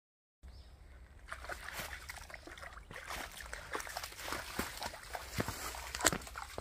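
Water splashing and sloshing in many small, quick splashes, starting abruptly about half a second in.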